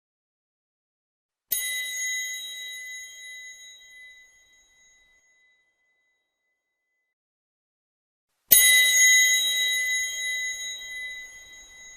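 Metal triangle struck twice, about seven seconds apart, the second strike louder. Each strike rings with a high, bright tone that fades away over three to four seconds.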